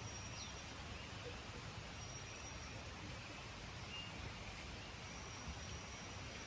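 Faint outdoor ambience: a steady hiss with a few short, faint bird chirps and a thin high tone that comes and goes.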